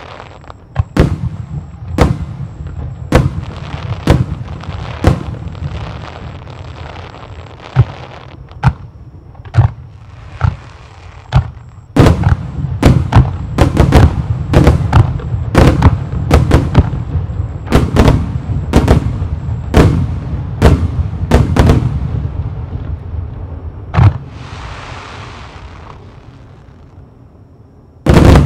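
Starmine fireworks: aerial shells bursting, about one a second at first, then a denser run of bursts over a steady low rumble of echoes. The run thins out, a brief hiss follows, and one very loud burst comes near the end.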